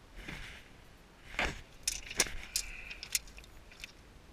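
A string of sharp clicks and light metallic rattles as a tape measure is stretched along a paddlefish and handled over loose rock.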